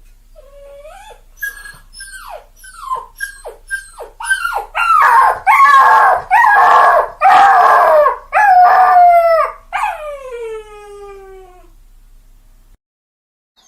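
A dog whining and crying. A run of short whines falling in pitch builds to loud, drawn-out howling cries in the middle, then one long whine slides down in pitch near the end.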